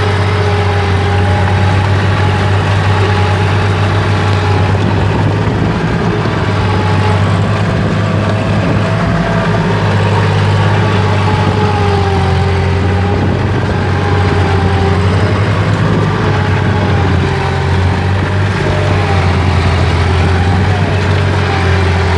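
Kubota L3608 tractor's three-cylinder diesel engine running steadily as it hauls a load of rice sacks through deep mud, heard close from the driver's seat. A low, steady drone, its pitch rising and falling slightly.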